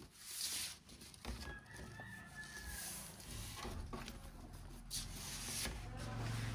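Kraft paper envelope rustling and crinkling in several bursts as a painting is slid into it and the envelope is handled. A faint drawn-out call sounds in the background from about a second and a half to three seconds in.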